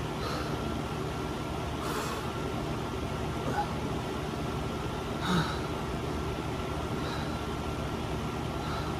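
A steady mechanical hum, with a few brief short sounds on top, the clearest about five seconds in.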